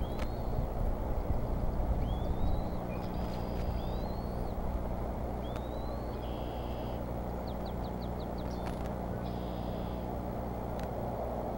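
Steady low electrical hum and rumble from the nest camera's audio, with short rising bird chirps every second or two and a quick run of five ticks about seven and a half seconds in.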